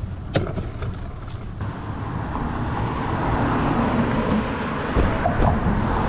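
Riding a mountain bike: wind rumbles on the microphone and tyre noise grows louder from about two seconds in, with a sharp click near the start and a couple of knocks near the end.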